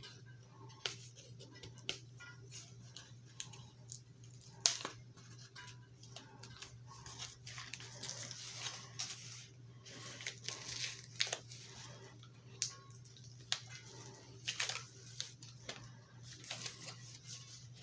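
Cardboard mailer being picked at and torn open by hand: irregular crackles, small rips and rustles of cardboard, with a steady low hum underneath.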